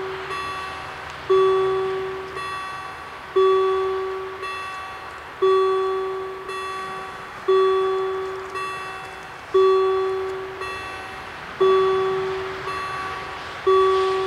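Level-crossing warning bells ringing in a steady repeating rhythm: a louder, lower strike about every two seconds with a softer, higher strike halfway between, each ringing on and fading.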